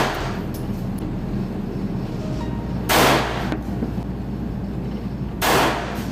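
9mm pistol shots on an indoor firing range: three single shots, one right at the start, one about three seconds in and one near the end, each a sharp crack with a short ringing tail. A steady low hum runs underneath.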